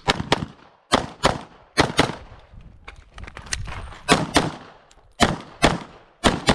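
Glock 17 9mm pistol fired in quick pairs, about eleven shots in all, with a pause of nearly two seconds midway through the string.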